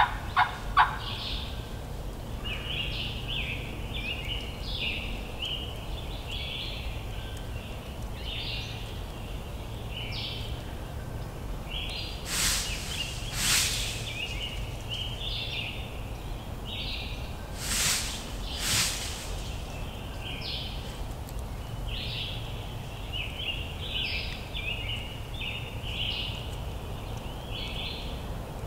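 Songbirds chirping steadily in woodland. About a second in, a series of loud turkey yelps comes to its end. Two pairs of short, loud swishes break in near the middle.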